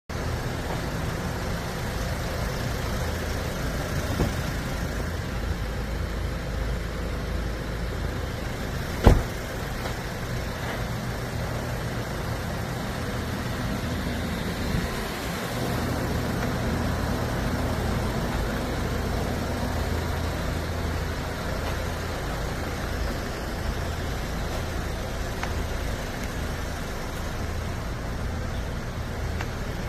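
Steady low engine hum of a vehicle idling, with one sharp knock about nine seconds in.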